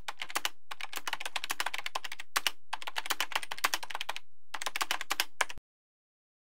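Rapid computer-keyboard typing, many quick clicks in a few runs with brief pauses, stopping abruptly near the end.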